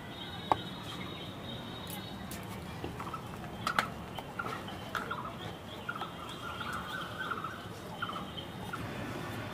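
A wooden spatula stirs thick milk in an aluminium pan, with a couple of sharp knocks against the pan. Short bird-like calls repeat in the background through the second half.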